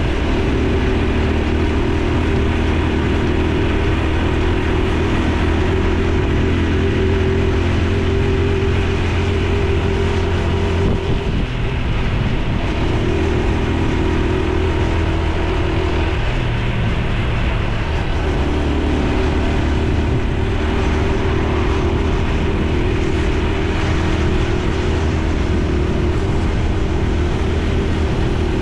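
Honda Super Cub C125's 125 cc air-cooled single-cylinder four-stroke engine and exhaust running steadily under way. The note shifts pitch a few times as the revs change, with a brief dip about eleven seconds in.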